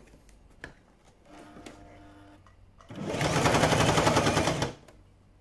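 Toyota sewing machine stitching through a folded trouser hem: after a faint hum, it runs in one short, fast burst of stitches about three seconds in, lasting under two seconds.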